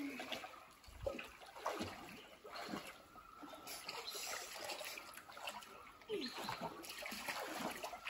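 A swimmer's strokes in open water, making soft, irregular splashing and trickling.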